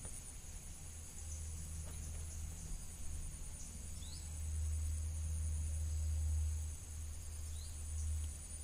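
Steady, high-pitched trilling of an insect chorus in the surrounding vegetation, over a low rumble that swells about halfway through. Two short rising chirps come through, one near the middle and one near the end.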